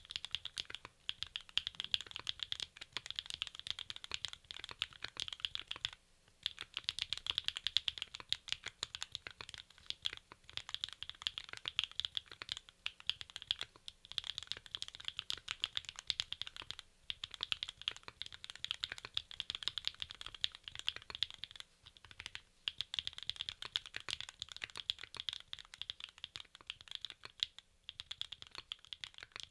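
Continuous fast typing on a mechanical keyboard with Sillyworks Slay Type S linear switches under PBT keycaps on an aluminium plate, a dense run of key clacks in bursts broken by short pauses every few seconds.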